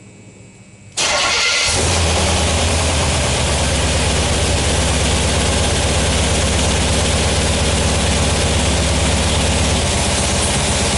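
1976 Corvette engine, fed by a Holley Sniper EFI Quadrajet, starting about a second in, catching almost at once and then running steadily.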